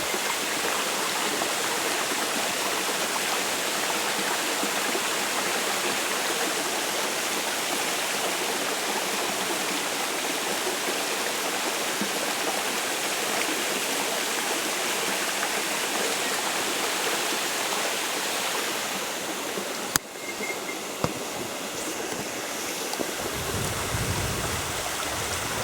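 Steady rush of a mountain stream's flowing water. About twenty seconds in there is a sharp click, after which the rush is quieter, with a low rumble near the end.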